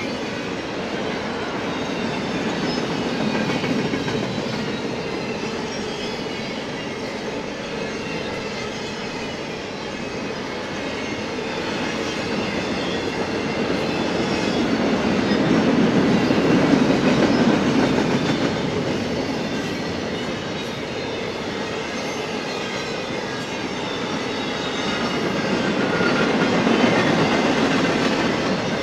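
Double-stack intermodal freight cars of a BNSF train rolling past, their steel wheels running on the rails in a steady rolling noise that rises and falls as the cars go by, loudest about halfway through.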